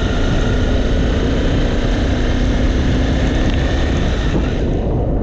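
Honda CBR 250R single-cylinder motorcycle engine running as the bike picks up speed, under heavy wind rush on the microphone. Near the end the higher part of the sound drops away and it turns muffled.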